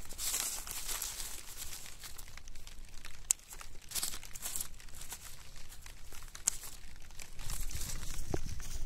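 Dry, dead strawberry leaves crackling and rustling against black plastic mulch film as they are pulled and snipped off the plants, with a couple of sharp clicks along the way. Near the end there is a low rumble of handling noise.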